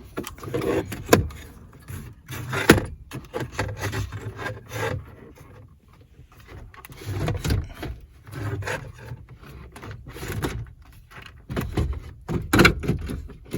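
Car stereo head unit being wiggled and pulled out of its dash opening: irregular clicks and knocks with rubbing and scraping as the unit shifts against the dash.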